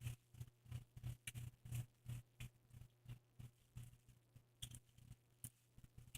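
Faint close-up chewing, the crunching of tortilla chips from nachos: a quick, irregular run of small crunches, several a second.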